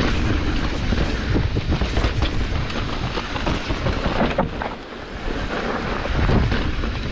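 Wind rushing over the microphone and the clatter of a hardtail mountain bike rolling down a rough trail, full of small knocks and rattles. It is briefly quieter about five seconds in.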